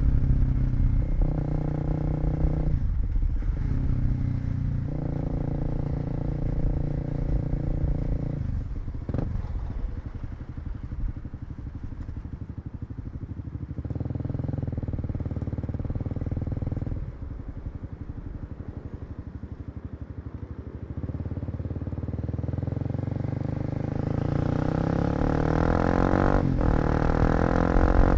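Kawasaki KLX250's single-cylinder four-stroke engine running under way. Its note holds steady for stretches, drops off twice as the throttle closes, then climbs steadily near the end as the bike accelerates.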